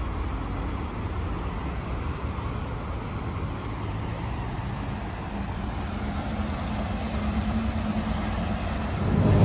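Steady rumble of distant road traffic, getting a little louder near the end.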